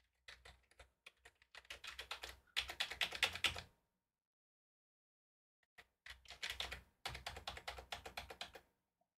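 Typing on a computer keyboard: two bursts of rapid keystrokes, the first about three and a half seconds long and the second, after a pause of about two seconds, about two and a half seconds long.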